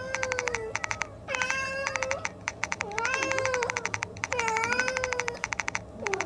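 A cat meowing several times in long, drawn-out calls that bend in pitch, mixed with bursts of quick, even clicking.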